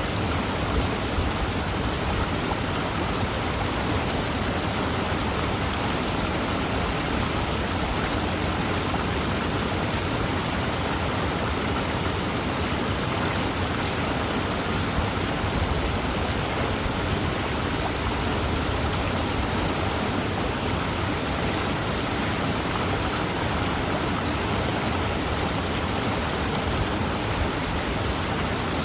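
Fast-moving river running, a steady, even wash of water noise that does not change.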